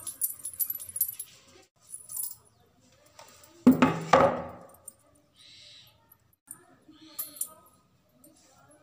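Heavy silver anklets hung with small bells and silver toe rings jingling and clinking as bare feet shift on a tiled floor, in quick clusters of chinks at the start and again near the end. About four seconds in there is a brief, louder pitched sound.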